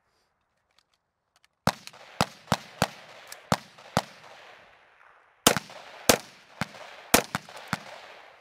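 Military rifles on a firing line, M4 carbines and an AK-pattern rifle, firing single shots at an irregular pace of about two a second, each crack trailed by a short echo. The firing starts after a silent first second and a half and pauses briefly midway.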